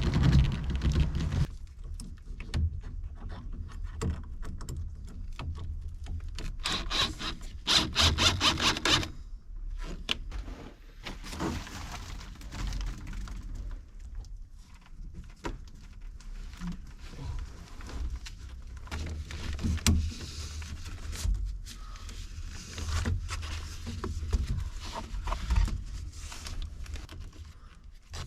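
Scrapes and knocks of things being handled, with a louder rasping stretch about six to nine seconds in.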